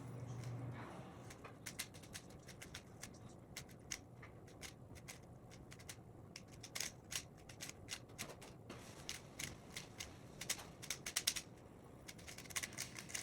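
3x3 Rubik's cube being turned quickly during a timed solve: irregular plastic clicks and clatter of the layers, in quick runs of several turns with short pauses between them.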